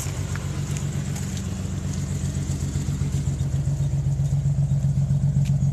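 1992 Nissan 300ZX's naturally aspirated VG30DE V6 running with a regular pulsing, uneven beat: the sound of a bad misfire.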